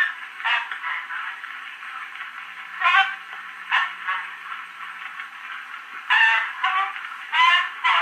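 Cylinder phonograph playing the 1890 wax cylinder recording of Florence Nightingale speaking through its brass horn: a thin, faint woman's voice in short phrases, heard about five times, buried in steady surface hiss.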